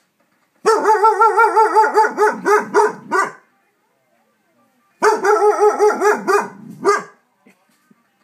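Big dog barking in two rapid bouts of about five barks a second, the first about three seconds long and the second about two, with a pause between: alarm barking set off by neighbourhood fireworks.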